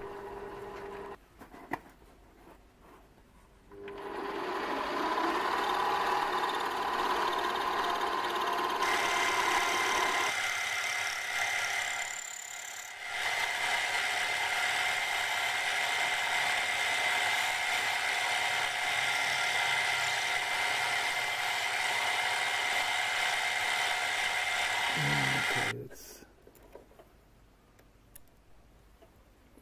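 Small metal lathe running in reverse, an upside-down parting-off blade cutting a steel jaw screw. It makes a steady machining noise with a high whine from about a third of the way in. It starts a few seconds in, and near the end the motor winds down and stops.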